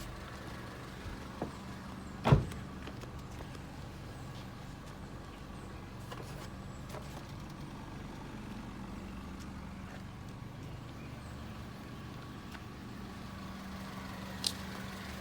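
2004 Honda Civic four-cylinder engine idling steadily while air is burped out of its cooling system. A single sharp knock sounds about two seconds in, with a couple of faint clicks elsewhere.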